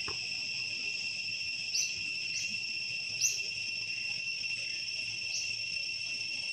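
Steady, high-pitched drone of a forest insect chorus, with a few short chirps over it.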